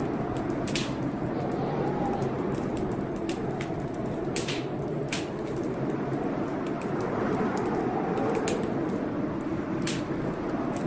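Wood fire crackling, with irregular sharp pops over a steady rushing background.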